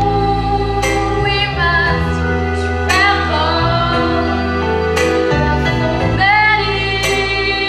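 Slow gospel ballad sung by a young female solo voice over instrumental accompaniment with sustained chords, marked by an accented beat about every two seconds.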